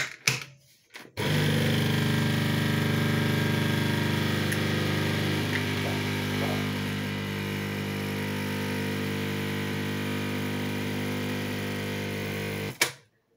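A couple of clicks, then a Dolce Gusto capsule coffee machine's pump hums steadily as it pushes hot water through the coffee capsule. The hum dips slightly in level about halfway and cuts off suddenly near the end when the brew finishes.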